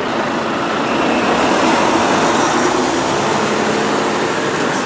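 Loaded HCT log truck combination with long multi-axle log trailers pulling away and rolling past at low speed: diesel engine running under load with a steady rolling noise of many tyres and trailer running gear.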